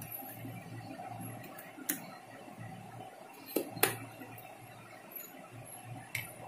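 A thin spoon clicking lightly against a steel bowl while seeds are scooped out of pointed gourds: one knock about two seconds in and two close together near four seconds, over a low steady hum.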